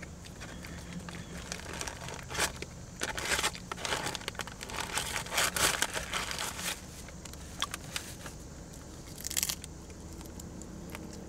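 Crinkling and crackling of food packaging being handled, in irregular bursts that are busiest from about two and a half to seven seconds in, with a short crackly burst near nine and a half seconds.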